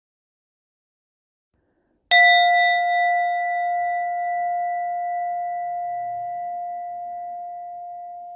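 A singing bowl struck once about two seconds in, ringing one clear note with a few fainter higher overtones and fading slowly.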